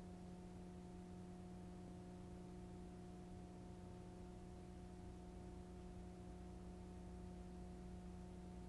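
Near silence: a faint, steady hum with light hiss underneath.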